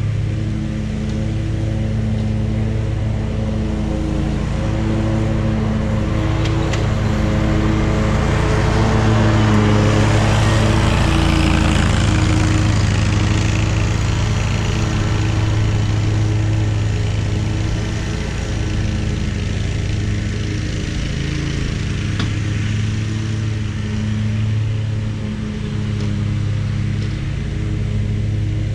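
Zero-turn lawn mower engine running steadily under load while cutting grass. Its drone and blade hiss grow louder about a third of the way in as the mower passes closest, then ease off as it moves away.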